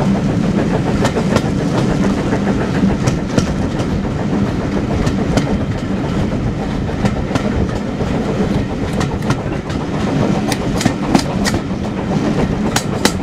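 Steam-hauled passenger train running, heard from an open carriage window: a steady rumble of the coaches on the track, with clicks as the wheels cross rail joints, coming more often near the end.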